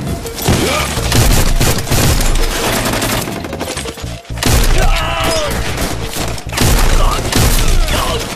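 Heavy, sustained gunfire: rapid volleys of shots from several guns, broken by a short lull about four seconds in.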